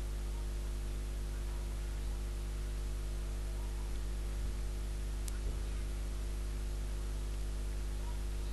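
Steady electrical mains hum with a background hiss, with one faint click about five seconds in.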